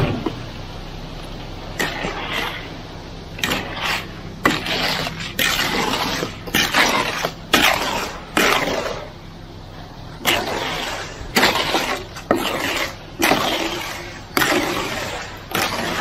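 Loose, high-slump ready-mix concrete, made fluid with a high-range water reducer, sliding and sloshing down a mixer truck's chute in repeated irregular surges. Under the surges is the steady low hum of the running truck.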